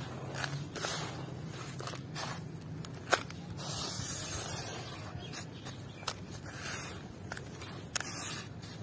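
Hands raking and scooping gritty, crumbly red dirt in a tub: a grainy crunching rustle in repeated strokes, with sharp clicks of small stones and grains, the loudest a little after three seconds in.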